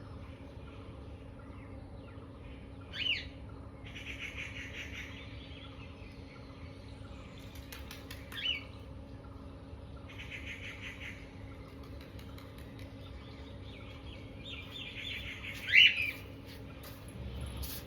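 Three short, sharp, high-pitched sneezes about 3, 8 and 16 seconds in, the last the loudest, with breathy one-second noises between them.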